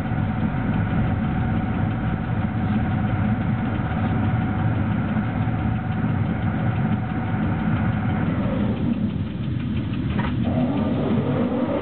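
Cab of a BDZ class 46 electric locomotive under way, with a steady running rumble and a held hum. About eight seconds in the hum fades. A single click comes about ten seconds in, followed by a rising whine.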